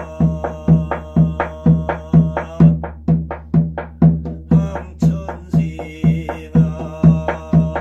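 Korean shaman's drum (gojang) beaten with a padded mallet in a steady ritual rhythm, about two strokes a second, briefly doubling to about four strokes a second in the middle before settling back.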